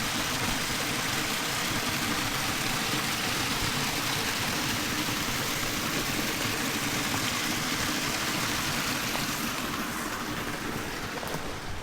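Water pouring over a small waterfall in a forest creek, a steady rushing splash that eases slightly near the end. The creek is running after a week of heavy rain and is normally dry.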